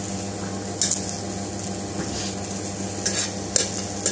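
Steady hum of kitchen equipment, with a few short scrapes and clinks of utensils against cookware.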